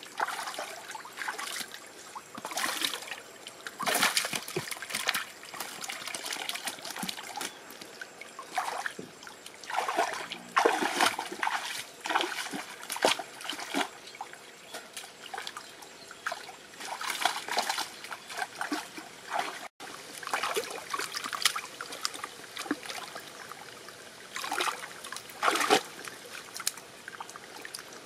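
Shallow stream water trickling, broken by irregular splashes and sloshes as a woven bamboo fish trap is pushed into and lifted out of the water and hands grab at a fish in the shallows.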